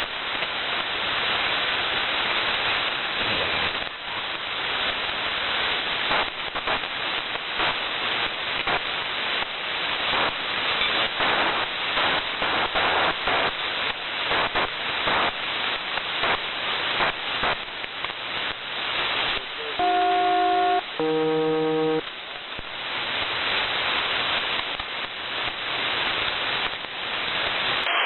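Shortwave receiver audio while a WiNRADiO Excalibur Pro is tuned across the HF bands: steady hiss with crackling static. About two-thirds of the way through, two brief steady multi-tone signals follow one another, each lasting about a second.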